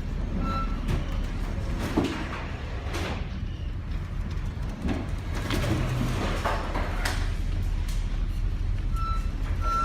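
Ship in a heavy storm: a steady low rumble with irregular knocks and bangs, as gear and fittings shift while the vessel works in the sea. A few short high tones sound near the start and near the end.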